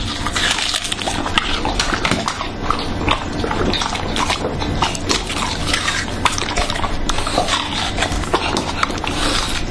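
English bulldog chewing and slurping a hand-held slice of watermelon: loud, wet smacking and crunching made of many quick clicks.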